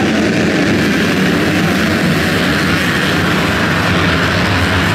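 Many motocross dirt bikes running together at high revs, their engines blending into one loud, steady engine noise.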